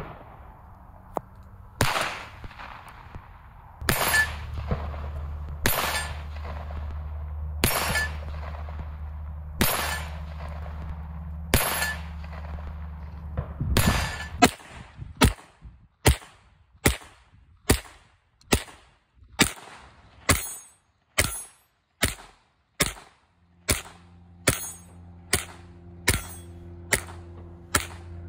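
Stainless Ruger MKII .22 LR semi-automatic pistol firing: single shots about two seconds apart, then from about halfway through a fast, even string of shots a little under a second apart.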